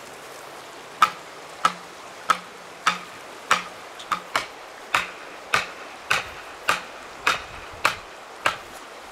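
Hatchet striking a wooden stake in a steady rhythm of about fourteen sharp blows, roughly one every 0.6 seconds, starting about a second in.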